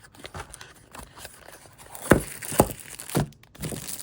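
Packaging being handled and opened: rustling, crinkling and tearing, with three or four knocks in the second half as the multi-tool comes out.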